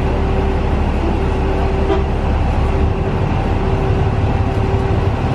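Airport apron bus engine running, heard from inside the bus: a steady low rumble with a constant hum over it, the rumble shifting slightly about three seconds in.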